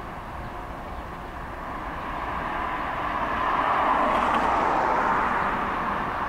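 Several Canadian Pacific diesel locomotives on a freight train running past, a steady engine drone that swells to its loudest about four seconds in as the units pass closest, then eases slightly.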